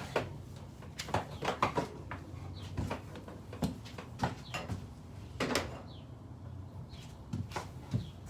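Scattered knocks, clicks and light clatter of handling equipment, about a dozen short strikes at uneven intervals, over a faint low steady hum.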